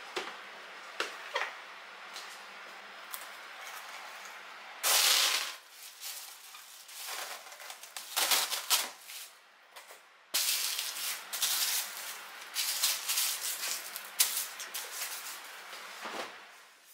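Glad Press'n Seal plastic wrap crinkling and rustling as it is pulled from its box and pressed around a cut watermelon half, in a string of loud rustles, densest in the second half. Before that, quieter handling of a plastic food container with a few small clicks.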